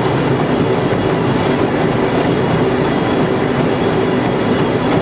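A row of gym treadmills running together under runners, a steady mechanical rumble.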